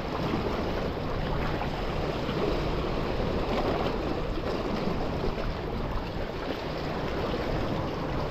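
Calm sea washing against shoreline rocks, a steady rush of water.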